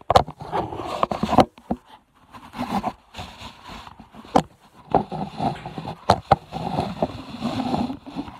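Phone microphone handling noise: irregular scraping and rubbing with many sharp knocks as the phone is moved about in the hand.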